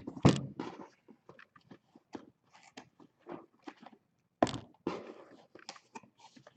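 Cardboard case and trading-card boxes being handled: irregular knocks and scuffs, with two louder thumps, one just after the start and one about four and a half seconds in.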